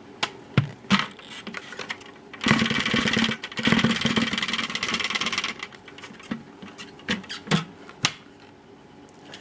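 Plastic clicks from the clear bin of a Dyson Light Ball bagless vacuum as its trapdoor is opened, then about three seconds of rattling as the bin is emptied, with a few more clicks near the end.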